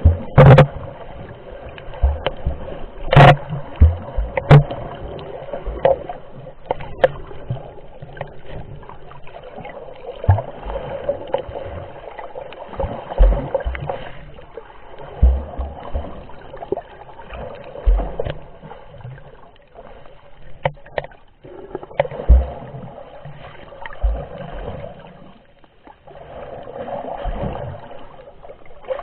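Muffled underwater noise picked up by a camera submerged while snorkelling: water sloshing and bubbling, with irregular low thumps and a few sharp knocks, the loudest about three seconds in.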